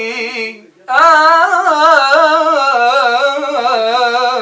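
A man singing an Arabic love song solo. After a short breath about a second in, he holds one long ornamented note whose pitch wavers up and down.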